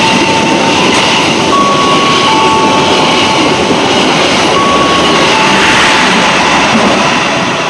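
Locomotive-hauled train passing through the station at speed without stopping: a loud, steady rush of wheels on rail, with thin high tones coming and going.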